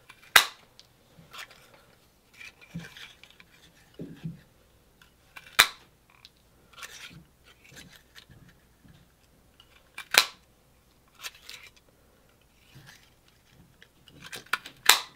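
Small handheld paper punch snapping four times, about five seconds apart, each sharp click punching a small circle out of red glitter paper for holly berry centers; faint paper rustling and handling between the clicks.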